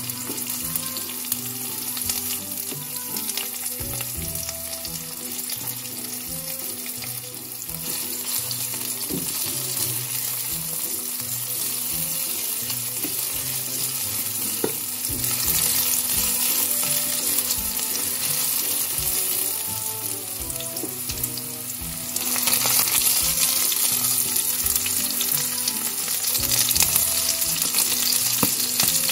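Sliced onions sizzling in olive oil in a ceramic-coated frying pan, stirred with a wooden spatula. The sizzle steps up in loudness about halfway through and again about three-quarters of the way through.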